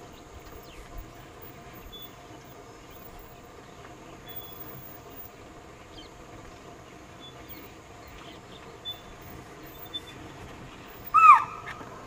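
Chital (spotted deer) giving a single shrill alarm call near the end: a short, high note that drops in pitch, a warning of danger. Before it there is only quiet forest background with faint, distant bird chirps.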